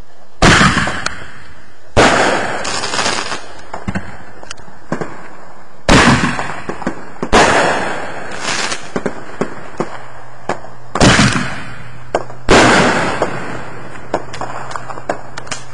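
Aerial fireworks going off overhead: about six loud bangs one and a half to four seconds apart, each trailing off in a fading rumble, with scattered small crackles between them.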